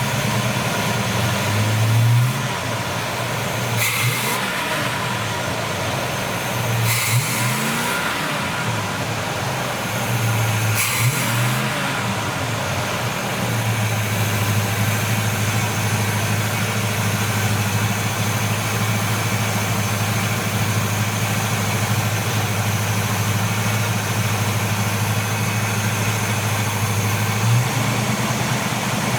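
1970 Buick Wildcat's big-block V8 idling, its revs rising briefly three or four times in the first dozen seconds, then idling steadily. The engine is being revved to check the distributor's timing advance.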